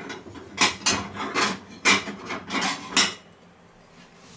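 Kitchen knife being sharpened on a honing steel: about eight quick metal-on-metal strokes that stop about three seconds in.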